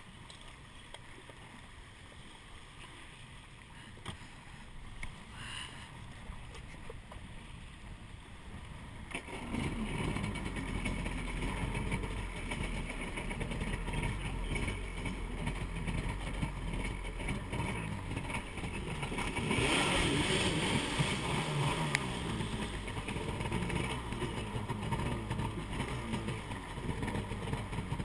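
Kawasaki SXR 800 stand-up jet ski's two-stroke twin engine coming on about a third of the way in and running, with a louder rev for a couple of seconds past the middle as the jet pump pushes off through shallow, muddy water.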